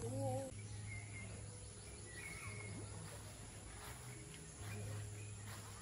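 Faint outdoor garden ambience with a couple of short bird chirps, about a second and two and a half seconds in. A voice is heard briefly at the very start.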